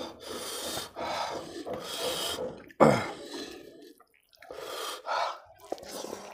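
Wet squishing and rubbing as a hand mashes and mixes rice with fish curry gravy on a plate, with close chewing and mouth noises. A sharp, louder sound comes about three seconds in.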